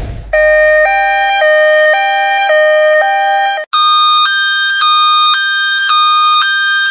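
Two-tone hi-lo ambulance siren sound effect, switching between two pitches about every half second. After about three and a half seconds it cuts off briefly, and a second, higher-pitched two-tone siren takes over with the same steady alternation.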